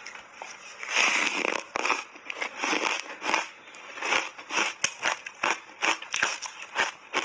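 Crunchy ice bar coated in matcha powder being bitten and chewed: a loud crunch about a second in, then a quick run of sharp crunches, about three a second.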